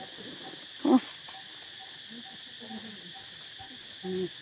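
Steady high-pitched insect drone, with two brief louder calls, one about a second in and one near the end.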